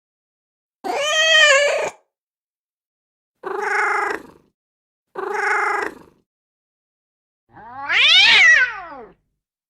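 Domestic cat meows: four separate calls with silence between them. The middle two are short and alike, and the last is the longest and loudest, sliding in pitch.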